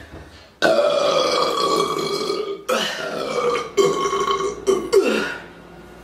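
A woman burping loudly: one long, drawn-out burp of about two seconds, then three shorter burps in quick succession.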